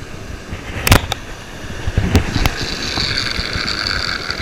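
A surf cast with a Penn No. 77 Sea Hawk direct-drive reel: a sharp knock about a second in, a couple of lighter knocks, then the free-spinning spool and handle whirring steadily as line pays out, fading near the end. Surf washes underneath throughout.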